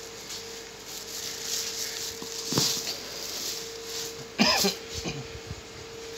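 A plastic bag and a large bunch of saag greens rustling as they are carried in and set down, over a steady hum. A short cough-like sound comes about two-thirds of the way through.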